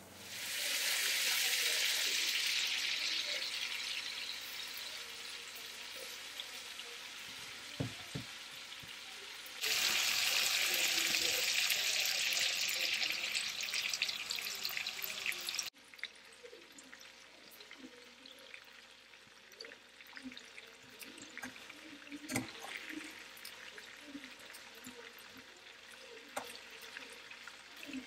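Food sizzling in hot oil in a pan. The sizzle comes in strong and slowly eases off, then is loud again from about ten seconds in until it stops abruptly. After that comes a quieter stretch with scattered light clicks and knocks.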